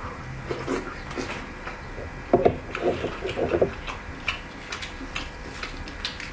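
Close-up eating and handling sounds of boiled eggs: small clicks and taps, with a cluster of louder knocks and crackles about halfway through.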